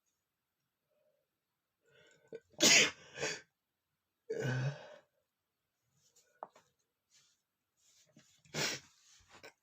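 A man sneezing hard, set off by powder: a loud sneeze about two and a half seconds in, followed closely by a shorter burst and then a voiced exhale, faint breathing noises, and a second sneeze near the end.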